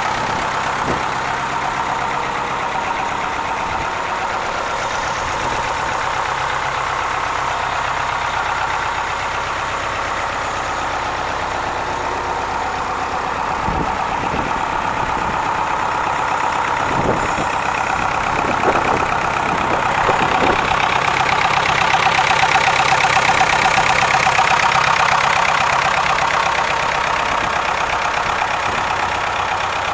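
David Brown 1412's turbocharged four-cylinder diesel engine idling steadily, with a few short knocks about halfway through.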